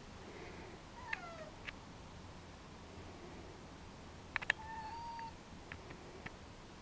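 Ragdoll cat meowing twice: a falling meow about a second in and a shorter, level one near five seconds in, a meow the owner puts down to jealousy at not getting attention. A few sharp clicks between them, the loudest a close pair just before the second meow.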